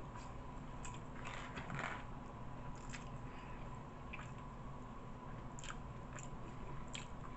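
Close-up chewing of a cheesesteak sandwich on buttered toasted bread: scattered wet mouth clicks and small crunches, thickest about one and a half seconds in, then single ones every second or so, over a faint steady hum.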